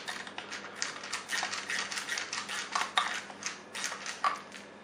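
Screwdriver turning out a screw from the black plastic motor assembly housing of an ice maker: a rapid, irregular run of small clicks and scrapes that stops shortly before the end.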